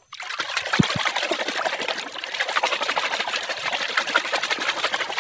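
Muddy water splashing and sloshing in rapid, continuous agitation as a hand scrubs a toy dump truck under the surface of a tub.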